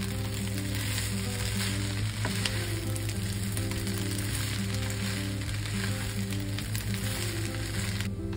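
Beef fried rice and cabbage sizzling in a frying pan while a wooden spatula stirs and turns it, with scattered scrapes and taps; the sizzle cuts off about 8 seconds in. Steady background music plays underneath.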